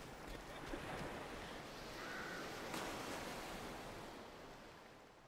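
Soft, steady rushing ambient noise, like air or surf, that fades out toward the end.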